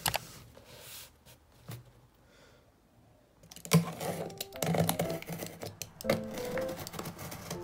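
Snap-off utility knife slicing along packing tape on a cardboard box: after a quiet start, a dense run of scratchy clicks and scrapes begins about halfway through as the blade is drawn through the tape.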